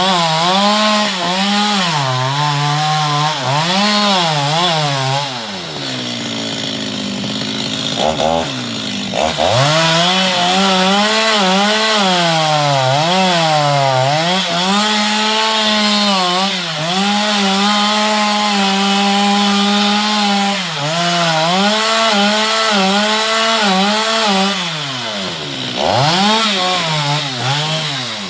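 Chainsaw cutting mango wood, its engine pitch sagging and recovering again and again as the chain bites. It drops toward idle about six seconds in and again near the end, each time revving back up.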